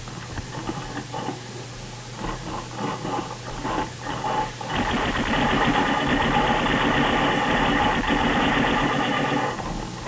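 Smart Parts SP-1 paintball marker firing cover fire: a few seconds of irregular shots, then about five seconds of fast, continuous firing as a steady whirring rattle that stops near the end.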